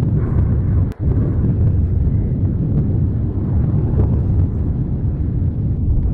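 Etna's Voragine crater erupting: a loud, continuous deep rumble, with a brief dropout about a second in.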